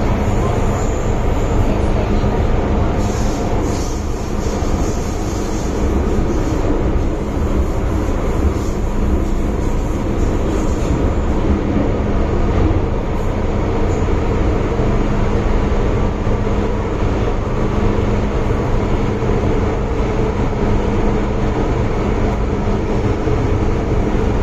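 Interior noise of an MTR Island Line M-Train, an ageing Metro-Cammell electric multiple unit, running between stations: a steady rumble with a steady low hum underneath. Faint high-pitched squeals come and go in the first ten seconds or so.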